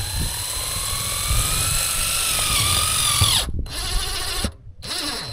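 Cordless drill-driver driving a screw into a wooden roof beam. The motor whines for about three seconds, its pitch rising and then sinking as it stops, followed by two short bursts near the end.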